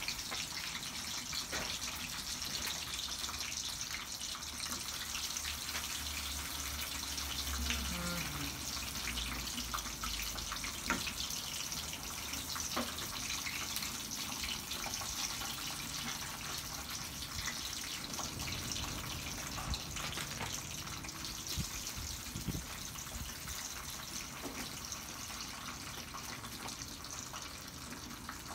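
Chips frying in hot oil in a frying pan: a steady sizzle, with a few sharp clicks of metal tongs against the pan.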